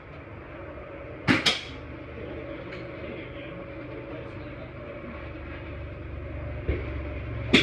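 Sharp cracks of golf drivers striking balls, each with a short ring: a quick pair about a second in, and a louder single crack near the end as the golfer's driver meets the teed ball. A steady low hum lies underneath.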